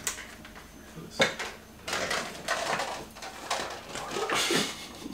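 Clicks, knocks and rustles of plastic being handled as a protein shake is made up: a powder tub, scoop and shaker bottle, with one sharp click about a second in.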